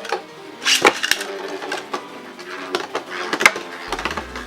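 Two metal Beyblade spinning tops, Storm Pegasus 105RF and Dark Wolf DF145FS, whirring and clashing in a plastic BB-10 stadium, with repeated sharp metallic clacks as they collide, the loudest about three and a half seconds in.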